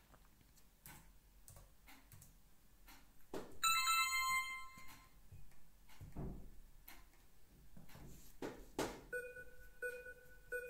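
Laptop keys and desk clicking and tapping as an answer is typed into an abacus-training program, then a bright chime of several tones from the laptop about four seconds in, signalling the answer matches. Near the end, short two-tone beeps repeat about twice a second, one with each number the program flashes up.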